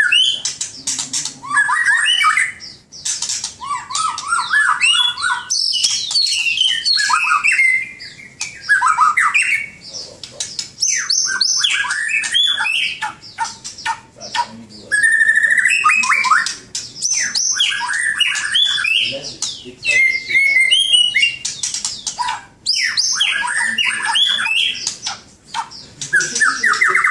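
White-rumped shama (murai batu) singing a long, varied song of clear whistles, rapid trills and chattering phrases, delivered in bursts of a few seconds with short pauses between them.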